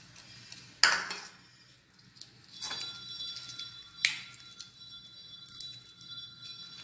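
Hands breaking dried red chillies over a stainless steel pot of tamarind water, with two sharp metallic clinks against the pot, about a second in and about four seconds in, the second the louder. A thin ringing tone hangs on between them and after.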